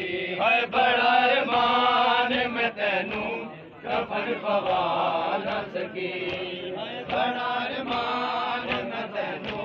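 Men's voices chanting a Muharram noha, with a short pause between lines about four seconds in. Under the chant runs a steady beat of sharp slaps, about three every two seconds: matam, mourners beating their bare chests with their hands.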